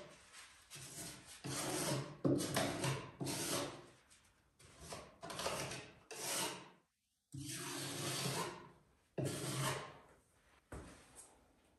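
Putty knife scraping wood filler across a wooden door frame in about a dozen uneven strokes.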